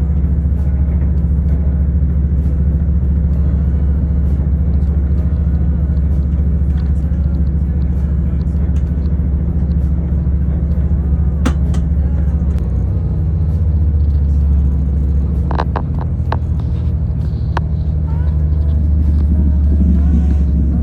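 Train running steadily with a loud, low rumble, and a few sharp clicks and knocks about halfway through and again later.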